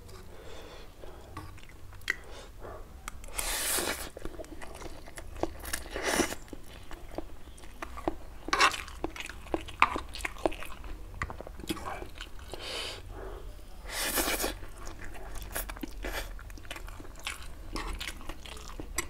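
A person chewing and biting mouthfuls of stir-fried Wai Wai instant noodles, with many small mouth clicks and clinks of a metal fork dragging noodles across a wooden board. There are two longer noisy sounds, about four and fourteen seconds in.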